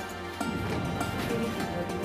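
Background music with steady sustained tones.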